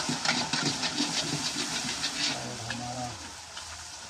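Puris deep-frying in hot oil in a wok: a steady sizzle with rapid crackling spatters that are densest for the first two seconds and then ease off.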